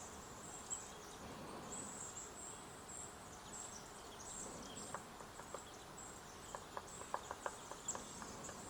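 Hairy woodpecker pecking at wood: irregular sharp taps, a few a second, sparse at first and coming thicker in the second half. Short high, thin chirps repeat in the background.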